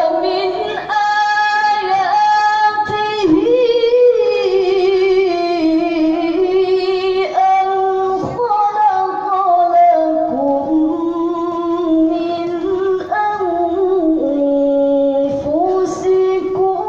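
A woman chanting Qur'anic verses in the melodic tilawah style, holding long notes with wavering ornaments and sliding between pitches.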